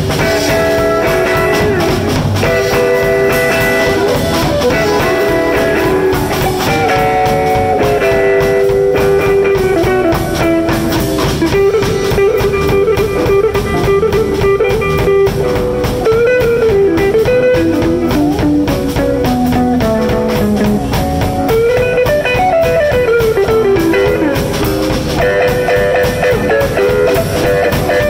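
Live electric blues band playing an instrumental passage: guitar over a drum kit, with a lead line of long notes that bend up and down.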